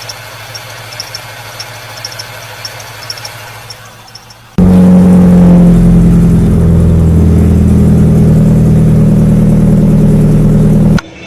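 A car making an abnormal noise: a quieter hiss with light ticks, then, about four and a half seconds in, a loud, steady, low drone that starts suddenly and cuts off suddenly near the end.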